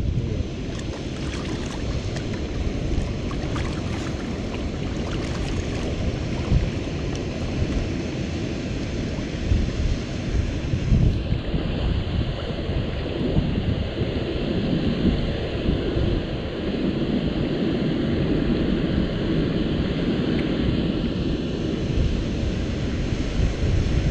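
Wind buffeting the microphone over a steady rush of moving river water, in uneven gusts.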